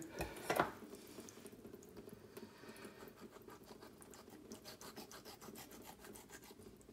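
Faint scratching and ticking of a knife working through a peeled roasted red pepper, with a couple of louder knocks in the first second.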